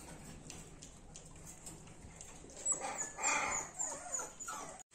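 Dachshund puppy whimpering and yelping in a cluster of high squeaks that starts about two and a half seconds in and lasts about two seconds. Before it, faint clicks come from the puppy eating out of a steel bowl.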